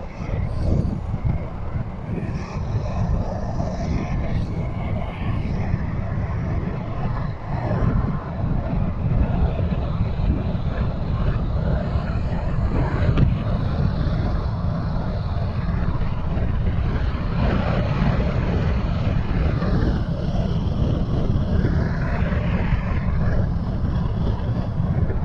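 Steady low rumble of a car driving: road and engine noise.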